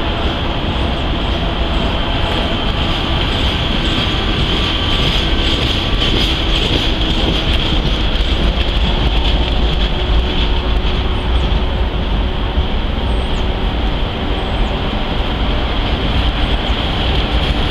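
Maintenance-of-way work train's camp cars rolling past on the rails, a steady rumble of wheels on track with a constant high-pitched hiss above it.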